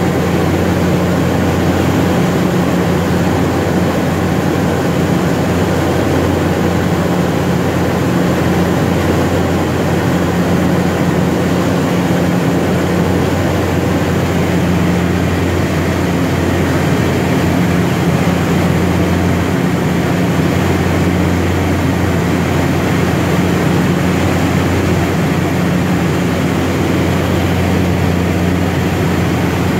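Cabin noise of a DHC-3 Turbine Otter in flight: the GE H80 turboprop and its propeller running steadily, a loud, even drone with a low hum.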